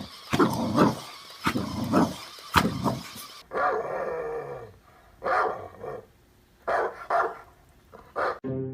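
Dog barking and growling in short repeated bursts, with separate single barks at intervals in the later part.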